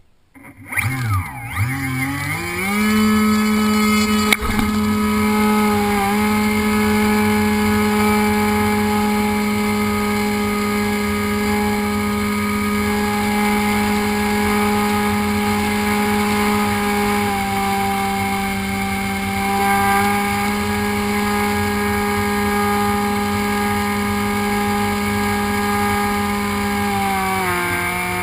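Electric motor and propeller of an HK FPV Raptor RC plane, heard close from the onboard camera: a whine that rises in pitch over the first couple of seconds as it throttles up, then runs at a steady pitch. A sharp knock about four seconds in, and the pitch drops slightly near the end.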